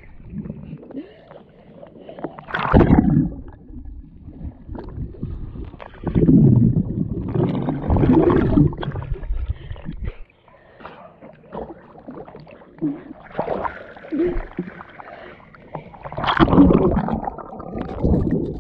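Pool water sloshing and splashing against a camera held at the surface, turning to muffled gurgling when it dips under, in irregular surges.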